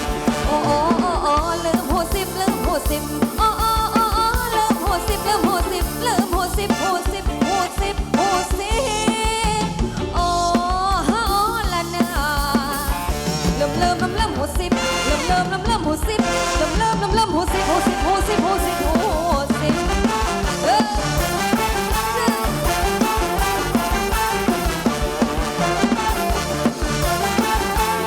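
Live band playing upbeat Thai ramwong dance music with a steady beat and a wavering melodic lead.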